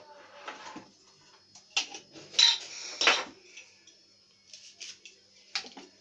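Glass jars and metal screw-on lids clinking and clattering on a countertop as they are picked up and set down: a few sharp, ringing clinks around two to three seconds in, and another near the end.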